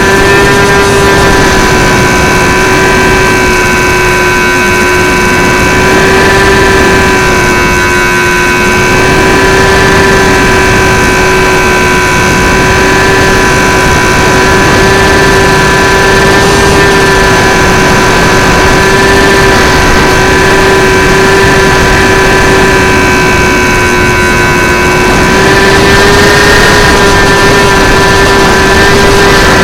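Electric motor and propeller of an XK A700-B RC model airplane heard from an onboard camera, a steady whine whose pitch wavers slightly with the throttle, over heavy wind noise on the microphone.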